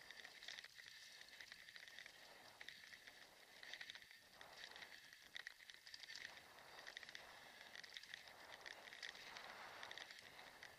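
Kick scooter rolling over a cobblestone road: a continuous, uneven rattling clatter of the wheels and frame on the stones.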